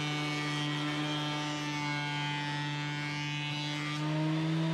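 Electric thickness planer motor running with a steady hum, its pitch stepping slightly higher about four seconds in.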